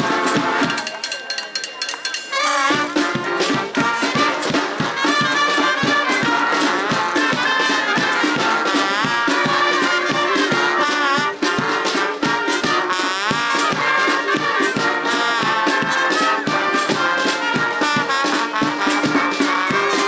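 Brass band playing a lively tune: saxophones, trumpets, trombones and a tuba over a drum kit with a bass drum keeping a steady beat. The band briefly thins out near the start, then comes back in full.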